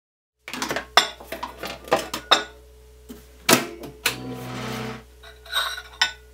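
Microwave oven being worked by hand: a run of clicks and knocks from its door and a plate, then a brief steady hum of the oven running about four seconds in.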